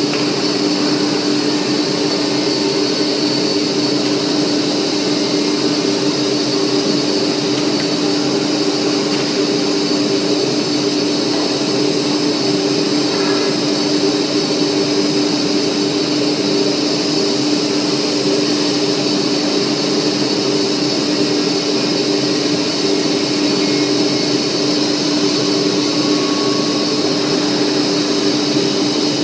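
Semi-automatic panel saw running steadily: a constant machine hum with a high whine over it.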